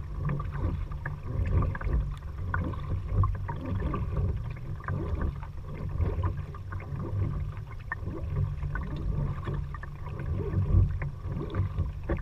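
Kayak paddling: the paddle dipping into the water and dripping, with many small splashes and trickles over a steady low rumble of wind on the microphone.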